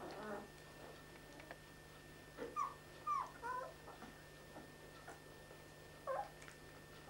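Newborn Dogo Argentino puppies giving short, high squeaks and whimpers in a few brief clusters, the loudest a little under halfway through and another near the end.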